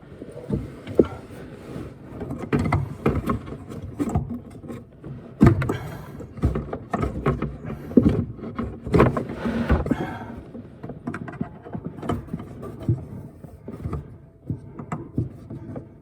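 Irregular knocks, clinks and scrapes of tools and plumbing fittings being worked under a sink while the old leaky faucet is unscrewed from below.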